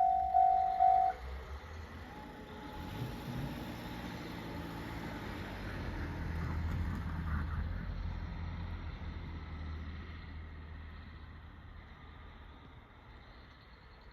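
A railway level-crossing bell rings its last few strokes and stops about a second in. Then a vehicle passes over the crossing, its engine and rumble swelling to a peak near the middle and fading away.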